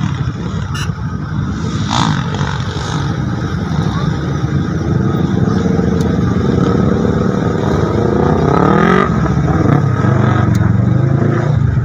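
Motocross dirt bike engines running throughout, with one revving up in a steep rising whine about nine seconds in before dropping back.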